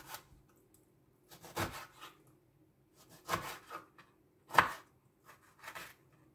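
Knife chopping a peeled lemon into pieces: about seven short, unevenly spaced cuts, the loudest a little past halfway.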